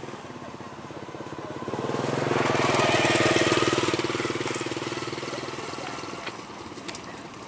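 An engine that swells with a rushing hiss to a loud peak about three seconds in, then fades away.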